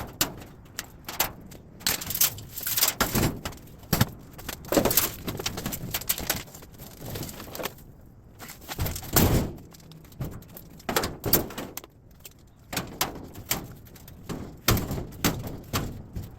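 Irregular knocks, clanks and rattles of sheet-metal appliance parts being pried off and handled during scrapping, with a few louder bangs spread through.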